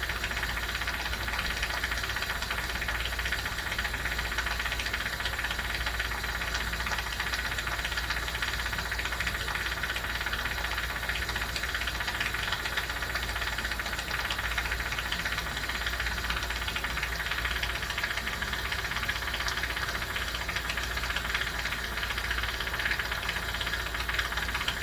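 Steady low electrical hum with a constant hiss from running workshop equipment, with no distinct strikes or changes.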